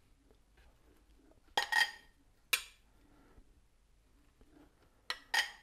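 Table knife scraping and clinking while sauce is spread onto a split baguette. There are short sharp scrapes in two small groups, about a second and a half in and again near the end.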